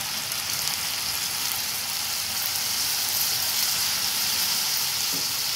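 Green beans and sliced pork sizzling steadily in a hot frying pan.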